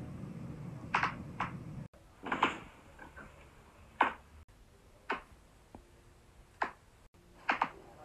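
Neck joints cracking as the chin is pushed sideways by hand: a series of sharp pops, about eight in all, some single and two in quick succession near the end.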